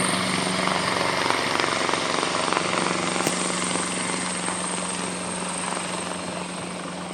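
Helicopter running steadily with a thin high whine over the rotor noise, slowly fading as it moves away after takeoff.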